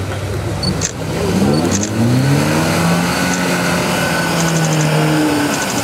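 Suzuki Samurai 4x4 engine revving up hard as it pushes through a deep mud and water hole, held at high revs for a few seconds, then easing off near the end.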